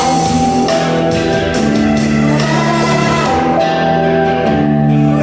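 Music playing loud, with long held melodic notes that change pitch every second or so.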